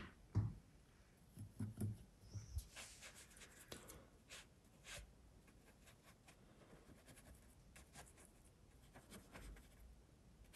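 Faint scratchy swishes of a paintbrush working wet watercolour paint across paper, with a few soft thumps in the first few seconds.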